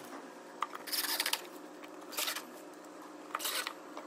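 Short handling noises from screws, drill and MDF jig: four or five brief scrapes and clicks about a second apart.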